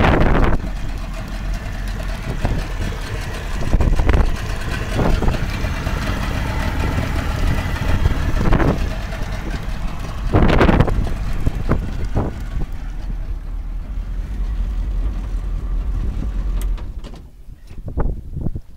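Tohatsu 70 hp outboard motor idling steadily, with its cooling-water tell-tale running. The low engine hum drops away about 17 seconds in.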